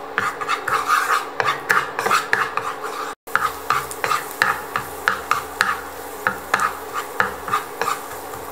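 Wooden spatula scraping and stirring minced garlic across a nonstick frying pan, about three strokes a second, over a light sizzle of the garlic frying in coconut oil. The sound cuts out briefly about three seconds in.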